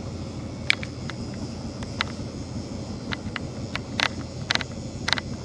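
Fishing boat's engine running steadily at trolling speed, with about nine short sharp clicks and taps scattered irregularly over it.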